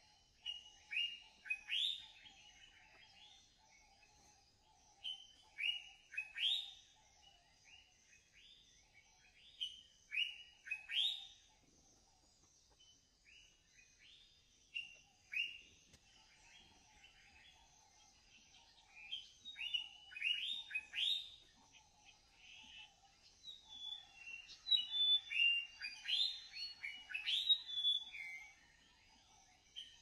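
Birds singing and calling in short, sharp falling notes that come in quick clusters, growing busier and louder in the second half, over a steady high-pitched background drone.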